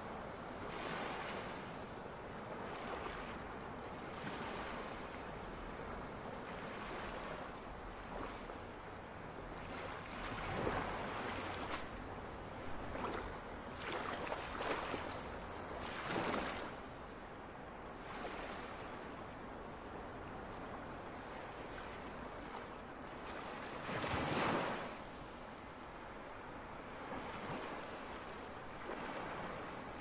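Ocean surf washing up a sandy beach: a continuous rushing wash with louder surges as waves break, several from about ten to sixteen seconds in and the strongest at about twenty-four seconds.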